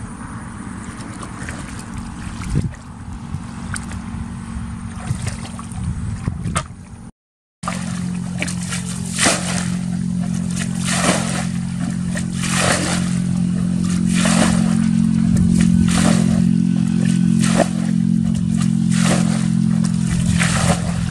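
Water being scooped and tossed out of a shallow ditch with a bucket: repeated sloshing splashes, coming roughly every second or so in the second half, over a steady low hum.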